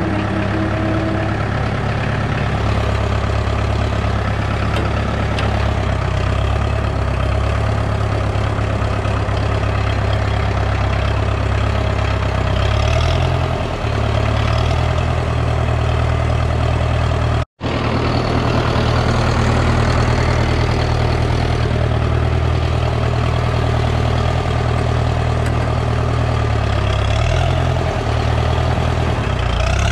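Diesel engine of a work machine running steadily at a low, heavy note, its note shifting briefly a couple of times. The sound cuts out for an instant just past halfway.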